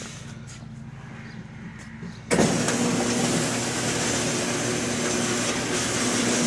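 Cliffhanger seamless gutter machine: a low hum for about two seconds, then the roll-former starts abruptly and runs steadily as formed gutter feeds out of it.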